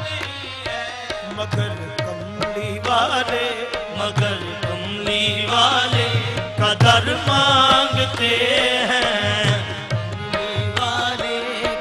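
Qawwali ensemble performing a naat: male voices singing over harmonium, with tabla keeping a steady rhythm.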